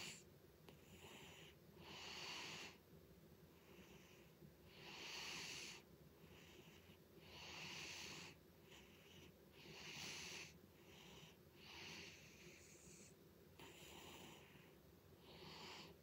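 Sleeping orange-and-white cat snoring faintly: breathy, hissing snores, a stronger one about every two to three seconds with softer breaths between.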